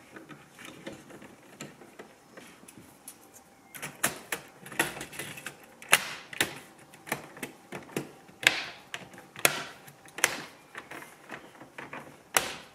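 Irregular plastic clicks and knocks of a car radio being screwed into the dashboard and its trim panel pressed back into place. Faint at first, with sharper clicks from about four seconds in.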